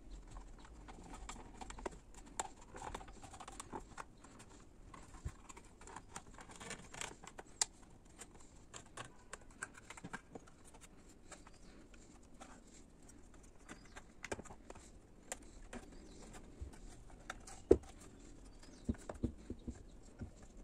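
Hands fitting rubber grommets onto a Yamaha FZ16's plastic tail cowl: faint, irregular small clicks and taps of plastic and rubber being handled and pressed into place, with one sharper knock near the end.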